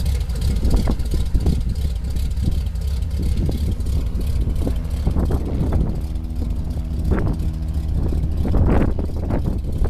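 Cessna light aircraft's piston engine and propeller running with a steady low drone, its pitched engine tones standing out more strongly from about halfway in.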